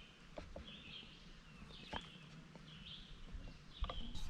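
Faint outdoor ambience with a bird calling over and over, short high calls about once a second, and a few light clicks and knocks, the sharpest near the end.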